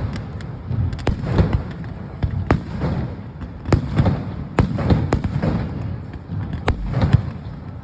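Fireworks finale: aerial shells bursting in a dense, overlapping barrage of low booms and sharp cracks, often more than one a second.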